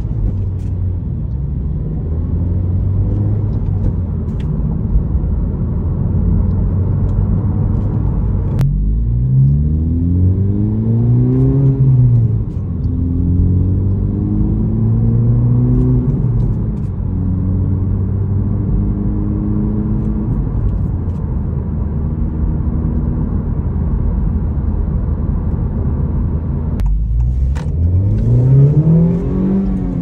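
Honda Civic Type R FL5's turbocharged 2.0-litre four-cylinder engine and resonator-deleted exhaust, heard inside the cabin with the windows closed. It holds a steady low-rpm note while cruising, and in between its pitch climbs under acceleration and falls back several times.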